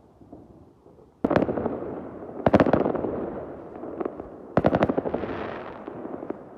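Fireworks going off in three loud salvos: a bang about a second in, then at about two and a half seconds and again near five seconds a rapid string of cracks, each salvo trailing off in a long echoing tail.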